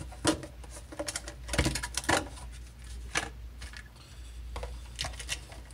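Irregular light clicks, taps and knocks of a plastic wall charger and its cable being handled and lifted out of a cardboard box, with a small cluster of knocks in the second and third seconds.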